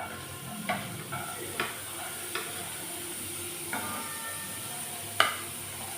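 Chopped garlic sizzling in hot oil as it is stir-fried, with a steady hiss. A cooking utensil clinks against the pan five times, the loudest near the end.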